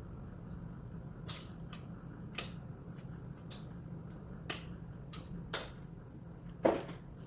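Scattered sharp clicks and taps of tools being handled, about eight at irregular intervals with the loudest near the end, over a steady low hum.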